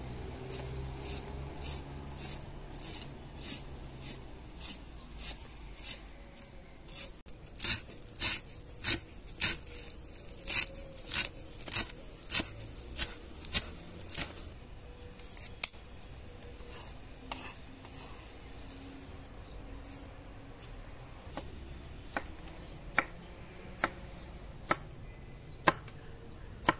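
Large kitchen knife chopping fresh herbs on a wooden cutting board, knocking on the board in a steady rhythm of about two strokes a second. Partway through, the chopping gives way to scattered single cuts, and near the end the knife is slicing cucumber on the board.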